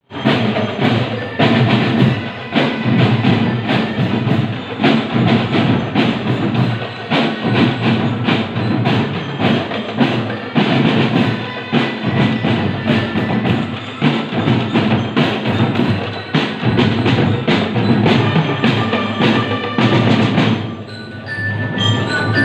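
Marching band percussion: drums hit in a fast, dense rhythm with metal mallet bells ringing over them. Near the end the drumming thins briefly and clear bell notes come through.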